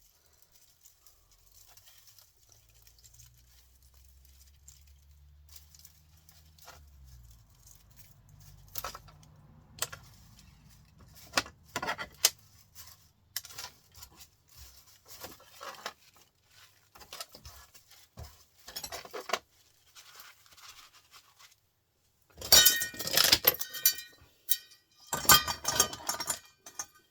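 Small pieces of scrap copper and metal parts clinking and rattling as they are handled, with scattered light clicks and two louder bursts of jangling clatter near the end as pieces are dropped together.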